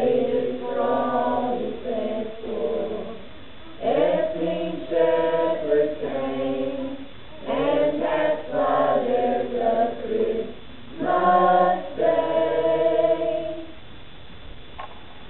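Small mixed choir of men's and women's voices singing together without accompaniment, in phrases of held notes; the singing stops near the end.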